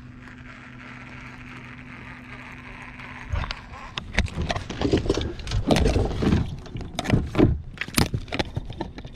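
A boat motor hums steadily, then cuts out about three seconds in. A run of irregular knocks and rustling from handling in the boat follows.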